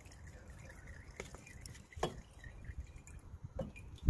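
Diesel fuel dripping from an old fuel filter as it is lifted out of its housing, with a few faint clicks, the sharpest about two seconds in.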